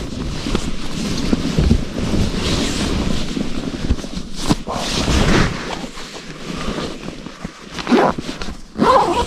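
Rustling of a nylon sleeping bag and clothing, with close handling noise, as a person shifts and sits up inside it. There are a few louder rustles near the middle and again near the end.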